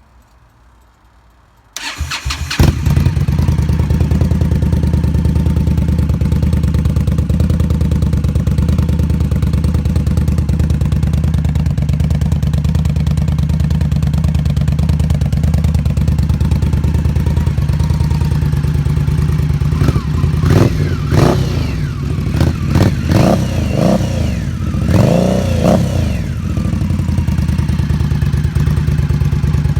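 V-twin motorcycle engine starting about two seconds in and settling into a steady idle. Near two-thirds of the way through it is revved in several quick blips, each rising and falling in pitch, then drops back to idle.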